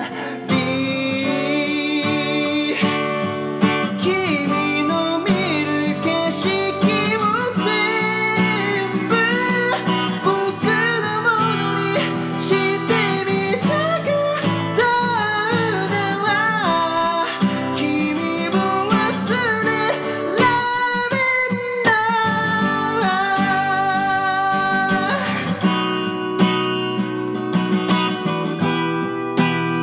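A man singing in Japanese over his own strummed acoustic guitar. The voice stops a few seconds before the end, leaving the guitar strumming alone.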